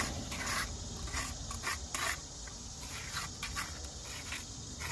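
Steel tuckpointing trowel scraping fresh mortar off a hawk board and packing it into brick joints, heard as a series of short, irregular scrapes.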